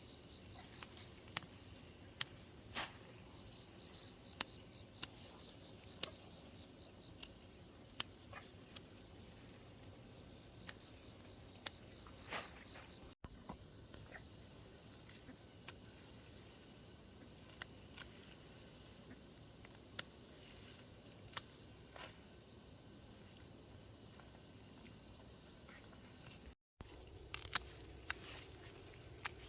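Insects trilling in a steady high-pitched chorus, with pulsed chirps joining later on, and scattered sharp clicks or knocks throughout. The sound drops out briefly twice.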